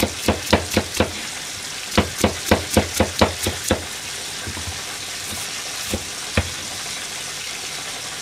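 Kitchen knife chopping green onion on a plastic cutting board, about four chops a second in two quick runs with a short pause between, then two single knocks. A steady sizzle of frying runs underneath.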